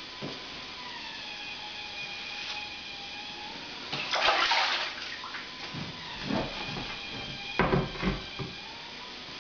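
Water sloshing as a tiling sponge is rinsed, a burst about four seconds in, then a few knocks as the adhesive-backed ceramic tile is lifted and shifted on the board. A faint steady whine runs underneath.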